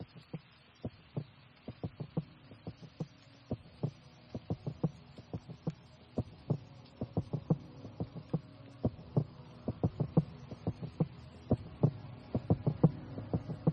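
Instrumental intro of an electronica track: a stream of quick, irregularly spaced low synth pulses over a low drone that grows louder toward the end.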